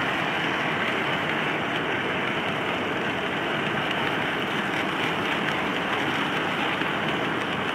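Model freight train cars rolling past, their metal wheels making a steady, even running noise on the track.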